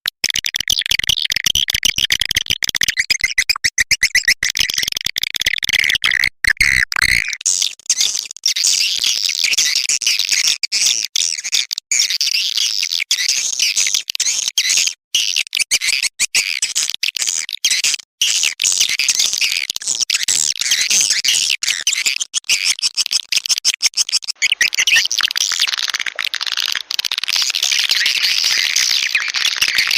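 Recorded edible-nest swiftlet calls: a continuous, dense, high-pitched chatter of many rapid chirps and twitters. This is a swiftlet lure track of calling and roosting sounds, played through tweeters to draw swiftlets into a nesting house.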